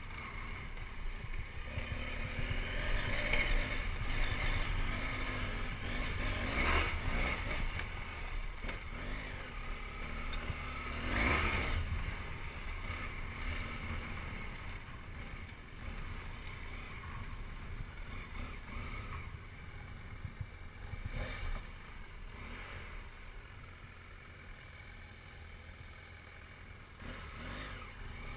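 BMW F800GS parallel-twin motorcycle riding slowly over a gravel track, its engine muffled under wind noise on the bike-mounted camera's microphone, with a couple of louder surges and quieter near the end.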